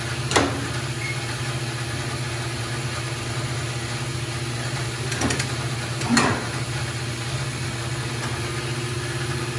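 Grob NS18 vertical band saw running under power, its motor and drive giving a steady, even hum. Three brief knocks cut through it, about half a second in and twice more around five and six seconds in.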